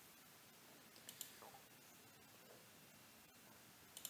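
Near silence, with a couple of faint computer mouse clicks about a second in and another near the end.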